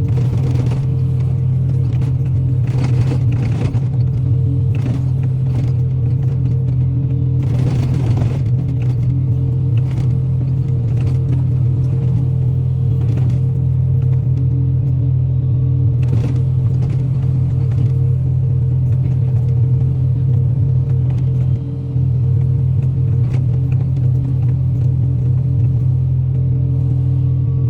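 Excavator diesel engine running steadily with a constant low drone, with a few brief cracks and knocks, mostly in the first third.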